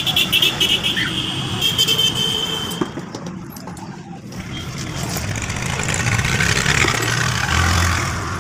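Road traffic passing close by: vehicles driving past, with a rapidly pulsing high beeping tone through the first three seconds. After a brief lull around the middle, the noise swells again, with a heavier vehicle's low hum near the end.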